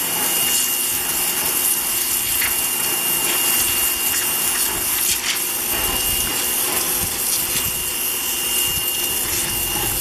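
WAP Ousada Plus 2200 electric pressure washer running with the trigger held: the motor and pump give a steady high whine over the loud hiss of the water jet blasting against stone and soil.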